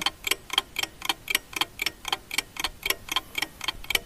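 Clock-like ticking sound effect, about four even ticks a second, starting abruptly.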